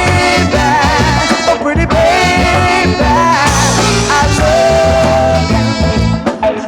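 Soul record playing: a full band with a steady bass and beat under a held, wavering lead melody line with vibrato.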